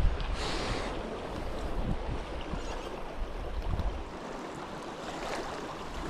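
River water rushing, with wind rumbling on the microphone for the first four seconds or so.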